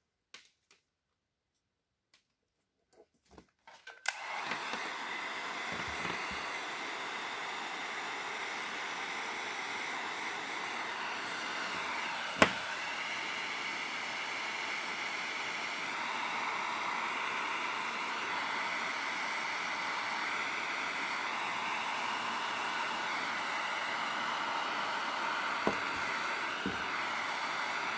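Electric heat gun switched on about four seconds in and running steadily, blowing hot air to shrink heat-shrink sleeving over wire splices. A single sharp click near the middle.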